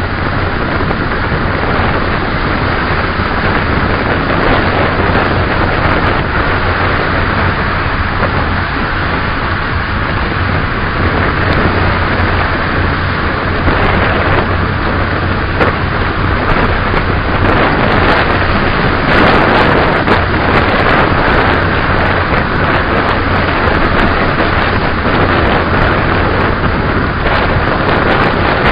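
Steady wind noise rushing over the microphone, an even hiss that runs without a break.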